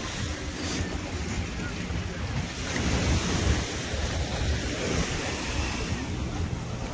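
Sea surf washing on the beach, with wind buffeting the microphone; the wash swells a little about three seconds in.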